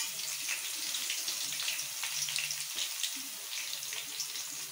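Crushed garlic cloves deep-frying in hot oil: a steady sizzle full of small crackles.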